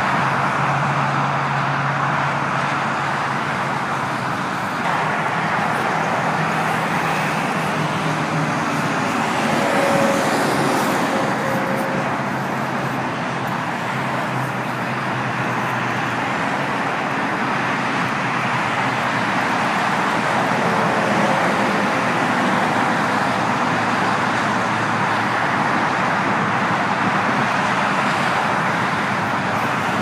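Steady rush of busy highway traffic: tyre and engine noise of many passing vehicles blending together, with a brief louder swell about ten seconds in.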